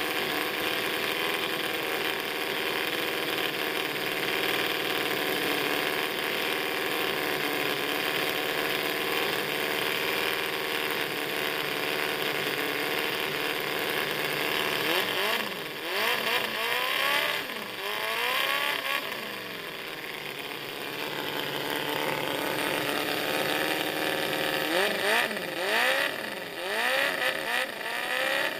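Miniature four-cylinder four-stroke petrol engine running at a steady speed, then revved up and down several times in the second half, its pitch rising and falling with each blip of the throttle.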